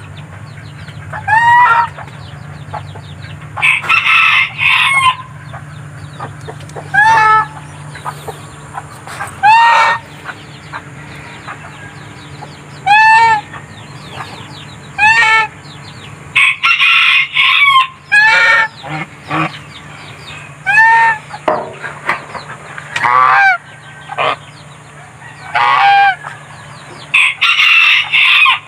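Backyard poultry calling over and over: chickens clucking, a rooster crowing a few times, and geese honking.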